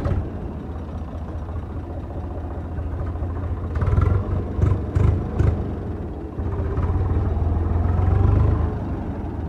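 An engine running with a steady low drone. Several short noisy bursts come between about four and five and a half seconds in, and the drone runs a little louder from about six and a half seconds.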